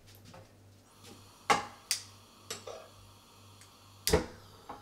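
A few sharp clicks and knocks from working a gas stove, its burner knob being set to a low flame and the pan handled. There are four hits, the loudest near the end, over a faint low hum.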